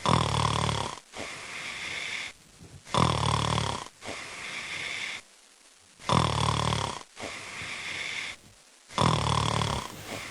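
A man snoring heavily in his sleep: four loud snores, each about a second long and about three seconds apart, each followed by a softer breath out.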